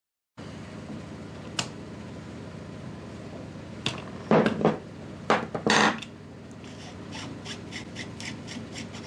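A wrench breaking loose and turning a rifle's threaded muzzle brake: two loud metal-on-metal scraping bursts about halfway through. Then the brake is spun off the barrel threads by hand, with light, quick ticking at about four a second.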